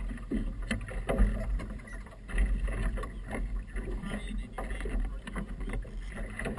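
Sounds aboard a small motorboat on choppy water: a steady low rumble with irregular knocks and splashes of water slapping the hull.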